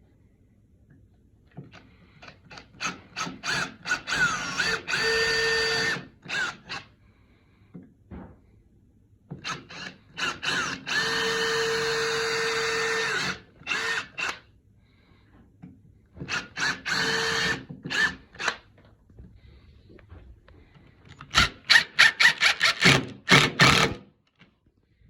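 Power drill boring small pilot holes into wood for hinge screws. Three runs, each starting with quick stuttering bursts on the trigger before a steady whine at speed, then fast, louder bursts near the end.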